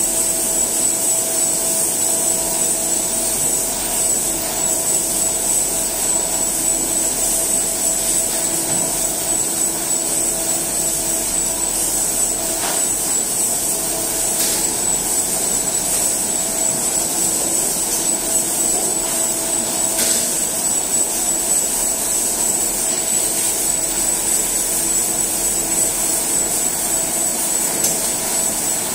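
Food-processing plant machinery running steadily: a constant mechanical din from conveyors and processing machines, with a high, steady whine over it.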